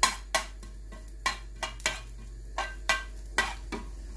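Metal spoon clinking against a stainless steel frying pan while stirring cumin seeds in a little oil: about nine sharp, ringing clinks at uneven intervals.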